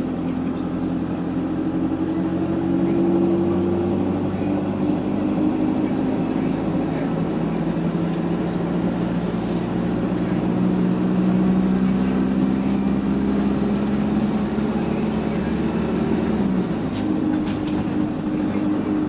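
Bus engine running under way. Its note climbs slowly for several seconds, then drops sharply about three-quarters of the way through.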